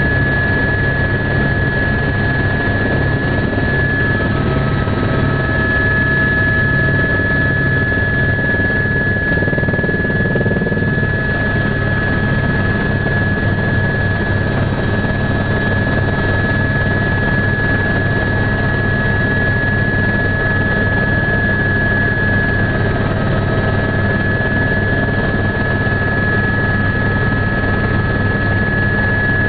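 Helicopter engine and rotor noise heard from inside the cabin, running steadily: a high, steady whine over a low drone.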